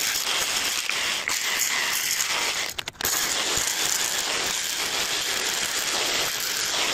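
SDS hammer drill boring a long masonry bit into brickwork at an angle, a steady rattling drone. It stops briefly about three seconds in, then drills on.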